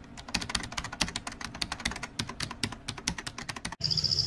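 Keyboard typing sound effect: rapid, irregular key clicks that stop abruptly near the end. After that comes forest ambience with a steady, high insect trill.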